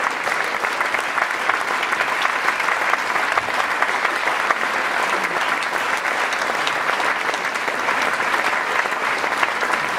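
Dense, steady applause from a theatre audience, with the chorus on stage clapping along.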